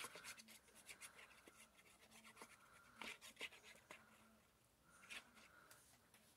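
Very faint scratching and light ticks of a plastic glue bottle's nozzle being drawn across a small paper card as glue is spread on it, with a few slightly stronger strokes about three and five seconds in.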